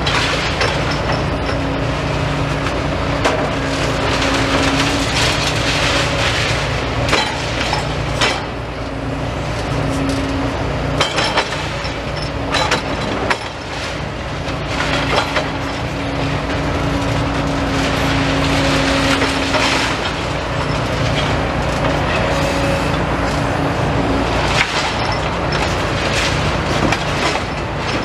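Demolition excavator working on a building: its engine runs steadily with a hydraulic whine that rises and falls away several times, while the attachment crunches and tears through the structure, with repeated cracks and crashes of breaking material.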